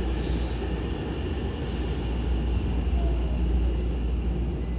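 Hankyu commuter train's running noise heard inside the car: a steady low rumble of wheels and motors as it approaches Okamachi station.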